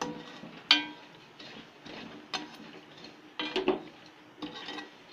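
Metal spoon scraping around a stainless steel pan, stirring dry desiccated coconut and sugar, with about four sharp ringing clinks of metal on metal.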